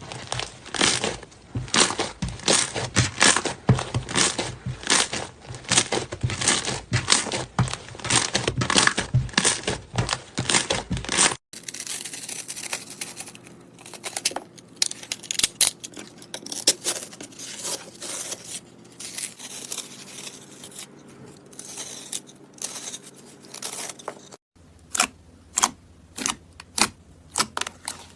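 Slime being squeezed and stretched by hand: a dense run of crackling and popping clicks. About eleven seconds in, it changes to a softer, sparser crackle, and near the end to separate sharp pops.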